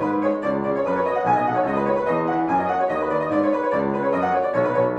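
Instrumental music with bowed strings and piano, a quick repeating run of notes at steady loudness.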